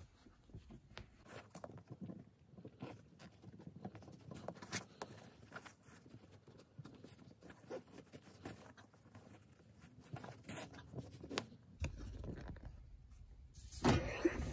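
Hands handling and folding a strip of fabric on a padded ironing board cover: faint rustling and scratching with small scattered taps, louder in the last second or so.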